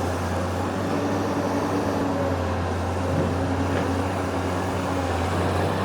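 Excavator's diesel engine running steadily, a constant low hum.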